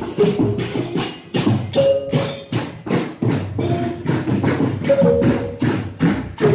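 A Yogyakarta palace soldiers' marching band of drums and cymbals playing a steady beat, about three strokes a second, with a short pitched phrase recurring every few seconds.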